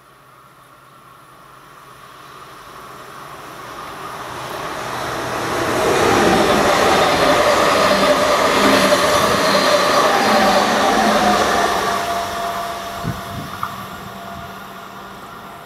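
Westbahn Stadler KISS double-deck electric multiple unit passing by at speed: a rushing rumble of wheels on rail that builds as it approaches, is loudest in the middle and fades as it recedes. A steady electric whine sits in the sound and drops a little in pitch as the train goes by, and a few sharp clicks of wheels over the track come near the end.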